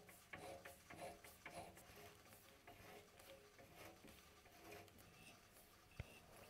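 Near silence: faint room tone with a few soft ticks and one short sharp click near the end.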